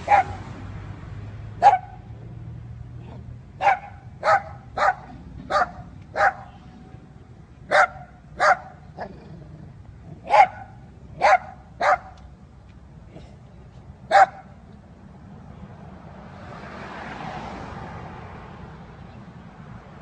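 A dog barking: about a dozen short, sharp single barks at uneven intervals, stopping about two-thirds of the way through. Near the end a soft rushing noise swells and fades.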